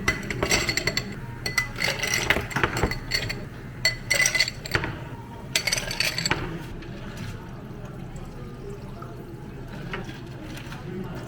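Glassware and utensils clinking during drink making, with liquid being poured. Sharp ringing taps come through the first six seconds or so, then a softer, steady stretch.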